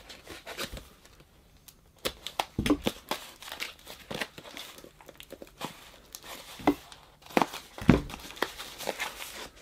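Packaging being torn open and unwrapped by hand: irregular crinkling and tearing with scattered sharper clicks, starting about two seconds in.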